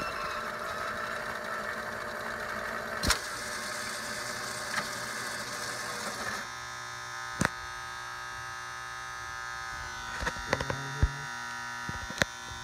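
Jukebox record-changer mechanism of a Rowe Ti-1100 Seville running, its motors whirring steadily while the transfer carries a 45 from the magazine to the turntable. The whir drops to a quieter running about six seconds in. Sharp mechanical clicks come now and then, with a cluster of clicks and a brief low buzz near the end.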